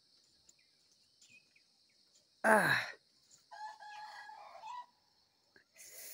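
A man sighs aloud, short and breathy, about two and a half seconds in. A second later a rooster crows once, faintly, the call held about a second, over a steady high insect drone.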